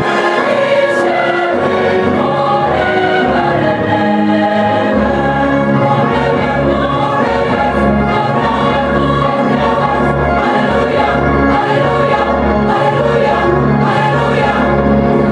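A large mixed choir of women's and men's voices singing in parts.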